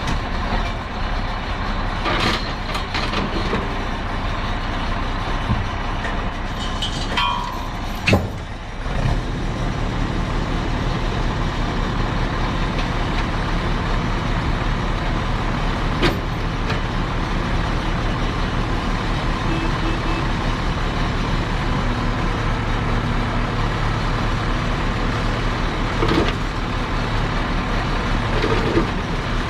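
Heavy equipment engine running steadily under load, with a few sharp metallic clunks. About nine seconds in, the engine note briefly drops, then settles into a steadier, slightly louder hum.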